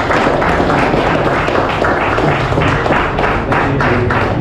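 A group of people clapping, with music playing underneath.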